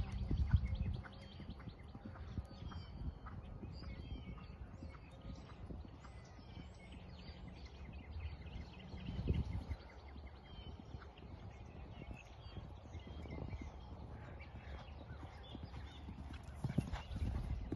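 A horse cantering on sand arena footing: dull hoofbeats, loud at first, fading as it moves away, then loud again near the end as it comes back close and jumps a fence.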